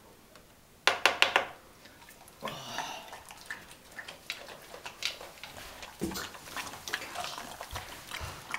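Border Collie eating yogurt-soaked kibble from a plastic bowl: irregular wet chewing and lapping clicks, after a spoon clinks in the bowl briefly about a second in.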